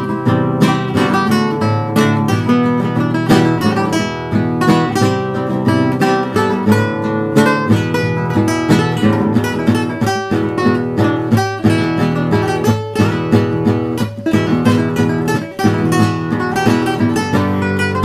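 Acoustic guitar music: an acoustic guitar strummed in a fast, steady rhythm, with dense chords.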